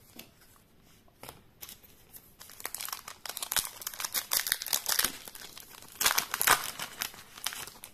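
Foil wrapper of a Yu-Gi-Oh trading card booster pack crinkling and tearing as it is ripped open and pulled apart by hand. The crinkling starts about two seconds in and comes in quick, uneven crackles, loudest in the middle and again near the end.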